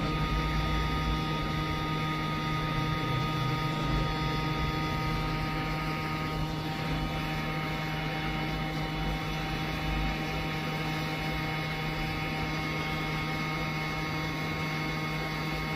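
Hot-air rework blower running steadily, a constant hum with a few thin steady tones, while it heats the solder to seat a replacement chip on a car ECU board.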